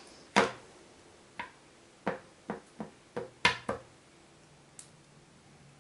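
Clear acrylic stamp block being tapped against an ink pad to ink a rubber stamp, making about nine short, sharp plastic taps at an uneven pace.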